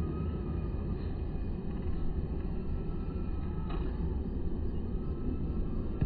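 Steady low rumble of outdoor background noise, with a faint thin tone coming in near the end.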